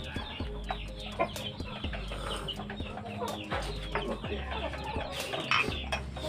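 Chickens clucking, with a few short sharp clicks and a low hum that comes and goes.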